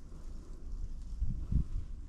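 Wind buffeting the microphone as a gusty low rumble, with two dull thumps near the end.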